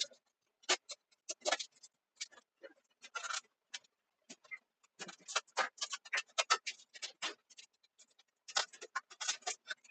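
A rapid, irregular series of short clicks and knocks, in clusters with brief gaps, sped up to three times normal speed.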